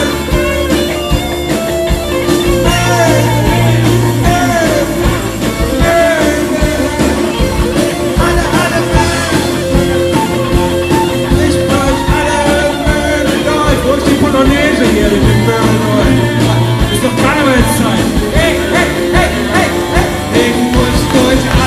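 Live band playing: a man sings lead into a microphone over electric guitar, bass, keyboard and drums.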